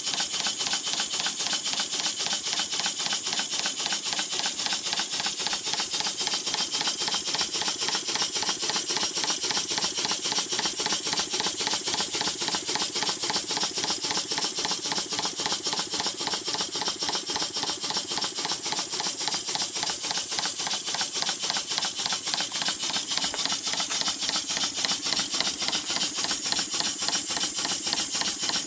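Large vertical model steam engine running steadily, its exhaust chuffing in a fast, even hissing beat.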